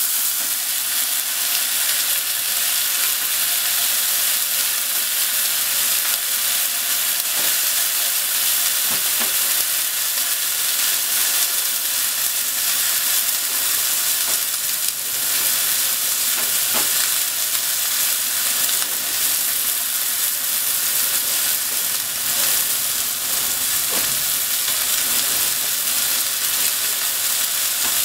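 A chicken thigh frying in oil in a non-stick frying pan: a steady sizzle with a few faint ticks and spatters.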